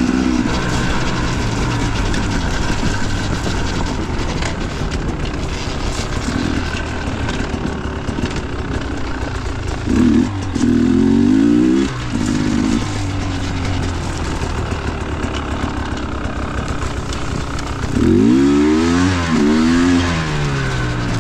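Dirt bike engine running while riding, with the revs rising and falling in two bursts of throttle, one about halfway through and one near the end.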